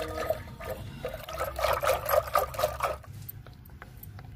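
Liquid pouring and trickling in uneven spurts, dropping to a quieter stretch about three seconds in.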